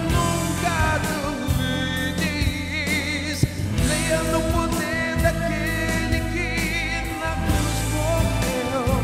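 A man singing a gospel song into a microphone over instrumental accompaniment, his held notes wavering with vibrato.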